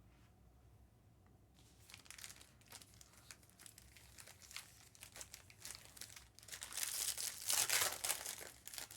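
Trading card pack wrappers being torn open and crumpled: scattered crackles begin about two seconds in and become louder and denser from about six and a half seconds in.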